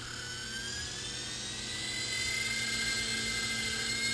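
Small electric toy RC helicopter spinning up its rotor: a high whine that rises in pitch and grows louder over the first couple of seconds, then holds steady as the helicopter lifts off the floor.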